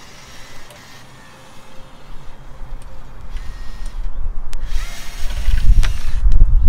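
Cordless drill backing out the screws that hold the seat cushion to a wooden chair frame. It is quiet at first, then a low, rough rumble builds from about two seconds in and is loud near the end, with a few light clicks.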